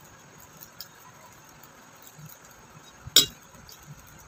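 Low room noise with a few faint clicks, then one sharp clink of tableware, a utensil knocking against a dish or glass, about three seconds in.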